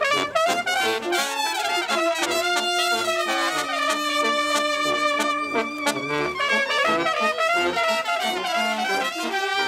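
Brass music, with melodic lines of long held notes.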